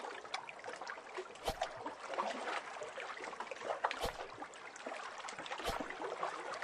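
Water lapping and trickling, a crackle of small splashes with three sharper knocks.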